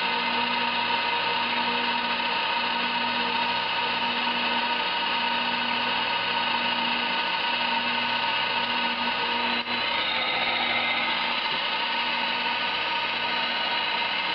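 Emco Compact 5 CNC lathe cutting black plastic rod, taking big bites: a steady motor whine with a low tone pulsing on and off about once a second. The pulsing stops after a brief dip about two-thirds through.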